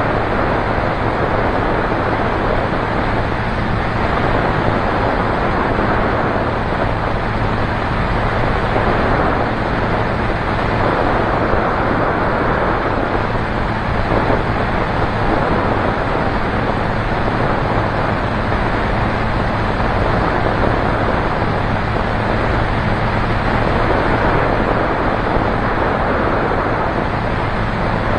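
Light single-engine propeller aircraft in steady flight: an even engine-and-propeller drone with a low hum, mixed with wind rushing over the microphone.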